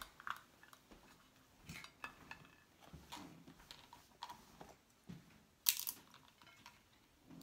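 Takeout packaging being handled: scattered rustles and light taps as a paper takeout box is opened and food lifted out, with one louder crinkle a little over two-thirds through.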